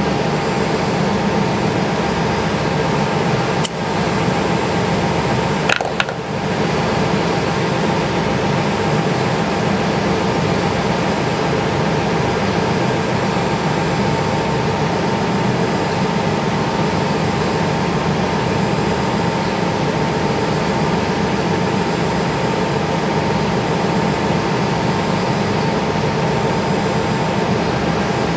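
Wind tunnel fan running steadily: an even rushing hum with a few steady tones in it. A sharp click breaks in near four seconds, and another pair of clicks comes around six seconds.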